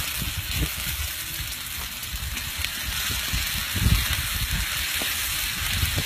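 Food frying in hot oil in a cooking pot, a steady sizzling hiss, with irregular low rumbles underneath.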